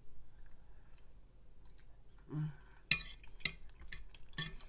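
Metal fork clinking and scraping against a ceramic dinner plate while food is scooped up, a handful of sharp clinks starting about three seconds in.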